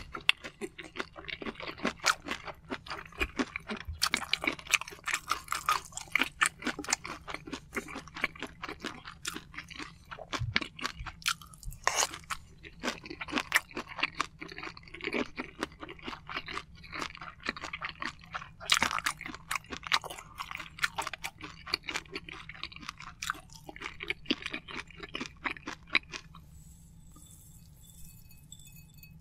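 Close-miked chewing of a mouthful of soy-sauce-marinated raw shrimp and rice: a dense run of wet smacks and small mouth clicks that goes on steadily, then grows sparse and quiet a few seconds before the end.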